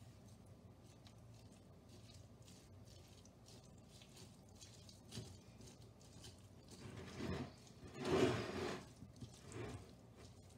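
A fork stirring tuna salad with yogurt in a glass dish: faint repeated clicks and scrapes, growing louder for a few seconds near the end as the mixing gets more vigorous.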